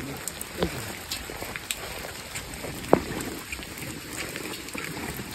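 Rain falling steadily, with scattered drops tapping close by and one sharper tap about three seconds in.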